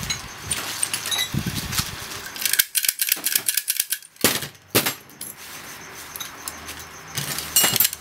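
An old manual pick gun snapping in brass PD lock cylinders: quick runs of sharp metallic clicks, densest from about two and a half to five seconds in and again near the end, with keys jangling as the cylinders are handled.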